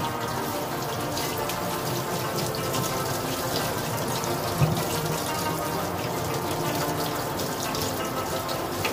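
Kitchen faucet running a steady stream onto a head of cabbage that is being rinsed and rubbed by hand in a stainless-steel sink, with water splashing off the leaves. One brief thump about halfway through.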